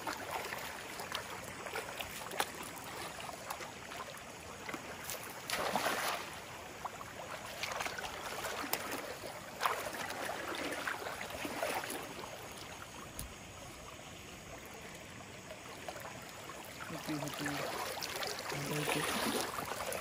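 Running river water with several splashes as a cast net is worked through it. Near the end, water pours off the lifted net.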